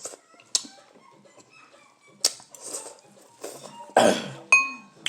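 Eating sounds from a bowl of very spicy instant noodles: a few short slurps and breaths, a loud cough-like burst about four seconds in, then a short clink of a utensil against the bowl.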